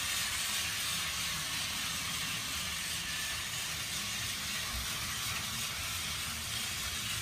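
Several battery-powered toy trains running at once on plastic track: a steady, even whirring hiss of their small motors and wheels.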